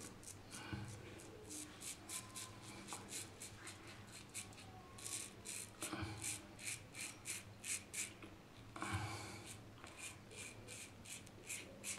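Single-edge safety razor scraping through lather and stubble in short strokes, quick runs of several strokes a second, faint.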